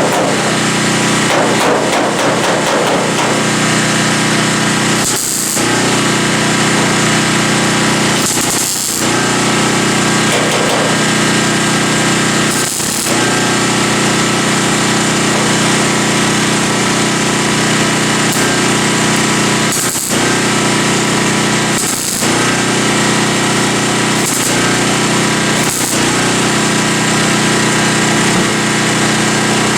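A power tool's motor running steadily and loudly, with several short breaks or dips where it briefly lets up.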